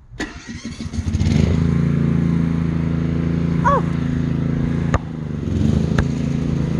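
An engine running steadily, coming up about a second in and then holding an even note. Two sharp knocks toward the end.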